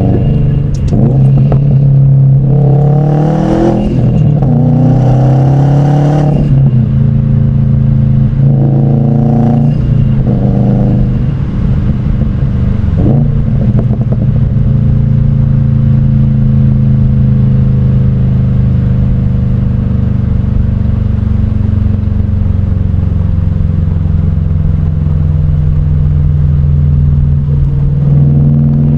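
2017 Subaru WRX STI's turbocharged flat-four engine revved in several rises and falls, then running steadily at a slowly dropping pitch for the second half, with one more rise near the end.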